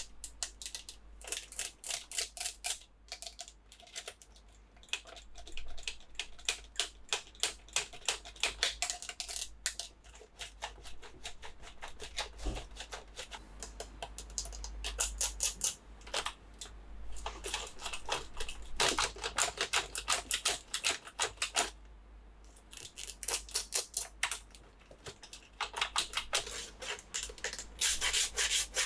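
Plastic dinosaur toys and their packaging being unboxed and handled: rapid runs of crisp clicks and crinkles that come in bursts with short pauses between.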